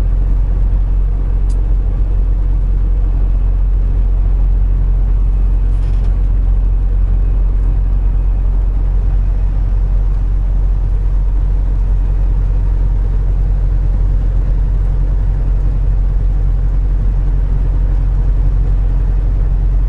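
Semi truck's diesel engine running steadily along with road noise, heard from inside the cab at highway speed: a constant low hum with no changes.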